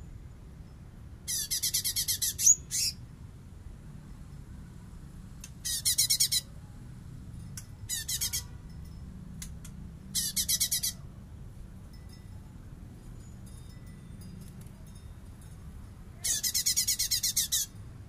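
Caged blue-winged leafbird (cungkok) singing in five short bursts of fast, high, rattling repeated notes, the 'bessetan' phrases bird-keepers prize, with pauses of a few seconds between bursts. A low steady background hum runs underneath.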